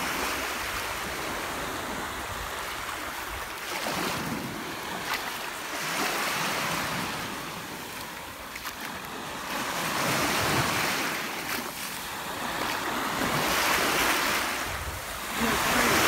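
Small Black Sea waves washing up onto a sandy shore and drawing back, the surf swelling and fading every few seconds.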